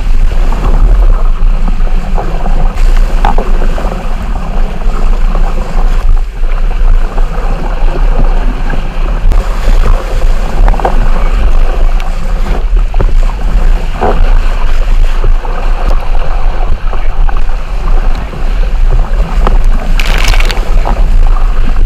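Wind buffeting the microphone on a small sailing catamaran under way, with water rushing past the hulls and spray splashing over the deck. A louder hiss of spray comes near the end.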